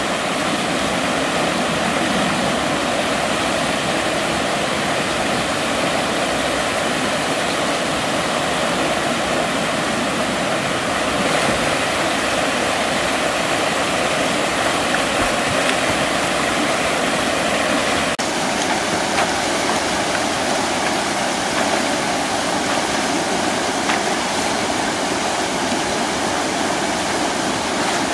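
Small waterfall on a stream pouring into a pool: a steady, constant rushing of water.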